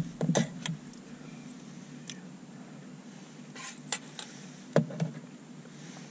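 A spoon clinking and scraping in a metal camping bowl during eating: a few light clicks at the start and a few more around four to five seconds in, over a faint steady low hum.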